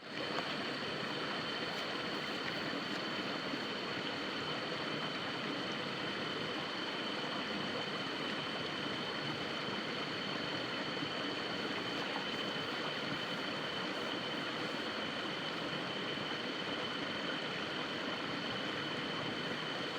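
Steady rush of flowing water by a rice paddy, even throughout, with a faint steady high-pitched whine over it.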